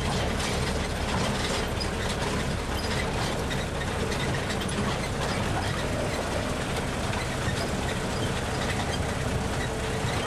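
Tour tram driving along a dirt road, heard from on board: its engine runs steadily under a constant rattle and clatter of the car.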